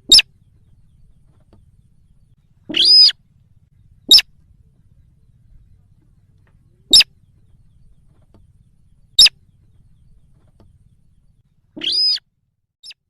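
Sintar bird lure calls from a recording: short, sharp, high single notes spaced a few seconds apart. Two longer, harsher calls come about three seconds in and near the end.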